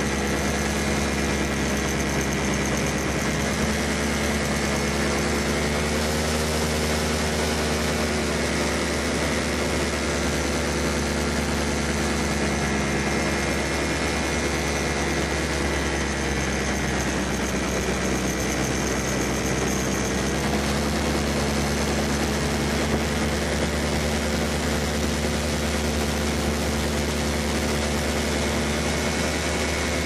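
Paramotor engine running steadily, its pitch drifting slowly up and down with throttle.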